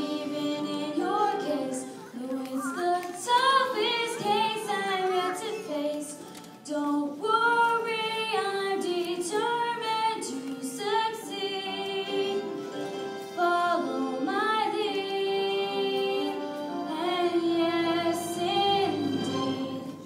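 Young girls singing a musical-theatre song, the voices gliding between and holding sustained notes.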